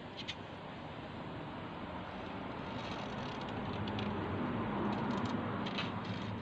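A passing vehicle's steady rumble, growing louder over a few seconds and easing off near the end.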